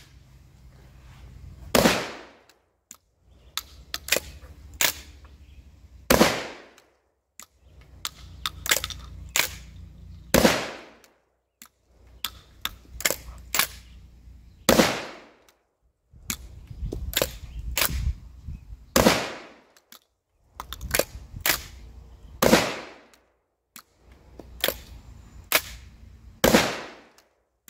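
Seven 12-gauge shotgun shots from a Sulun Arms Auslof tube-fed break-action shotgun, about four seconds apart, each ringing out briefly. Between the shots come smaller clicks and clacks as the action is broken open and snapped shut to feed the next shell.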